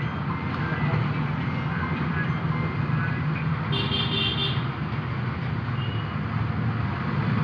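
Steady road traffic noise with a low engine hum, and a short high-pitched horn-like beep about four seconds in.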